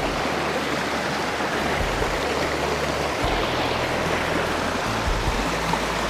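Stream water rushing steadily and evenly.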